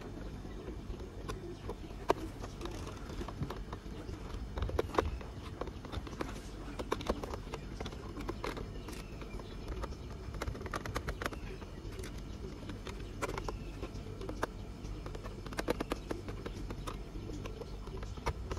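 Irregular small clicks and ticks of a handheld screwdriver turning screws into a plastic toy vehicle's body as they are tightened, over a low background hum.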